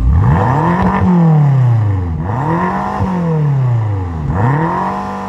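2016 BMW M5's 4.4-litre twin-turbo V8 revved three times from idle through its quad exhaust. Each time the pitch climbs quickly, then sweeps slowly back down.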